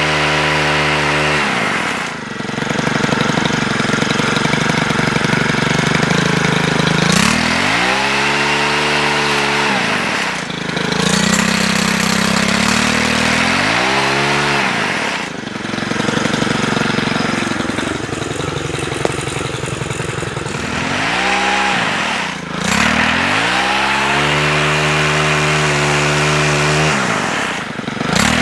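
Stihl HT103 pole saw's 4-MIX engine running at high revs, dropping back and revving up again about five times, as the saw is throttled up and down while trimming branches.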